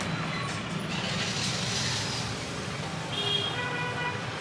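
Steady background noise of street traffic around a roadside snack stall, with a brief pitched tone about three seconds in.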